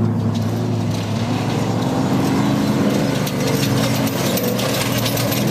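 Off-road race vehicle's engine running steadily, its pitch wavering slightly.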